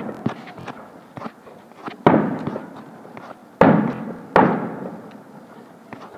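Fireworks exploding: three loud bangs, one about two seconds in and two close together a little past three and a half seconds, each trailing off in a long echo, with scattered smaller pops between them.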